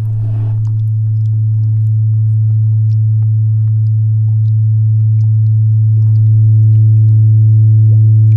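A steady low drone tone with fainter higher tones layered above it, slowly getting louder, and a few faint scattered clicks.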